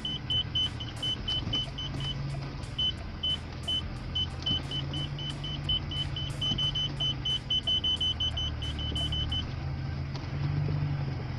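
Parking-sensor (parktronic) buzzer beeping in short high beeps while the car reverses: the beeps are spaced out at first, then come faster and closer together, which signals an obstacle getting nearer, and cut off a couple of seconds before the end. Underneath, the carburetted Audi 80 B3 engine idles steadily as it warms up.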